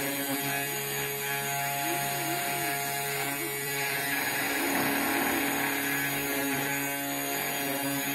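A 3018 desktop CNC router carving with a V-bit. The spindle motor runs with a steady whine, and short rising-and-falling whines come in as the head moves along its path.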